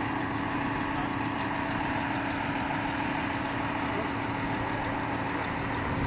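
Crane engine running steadily, a constant hum with no change in speed.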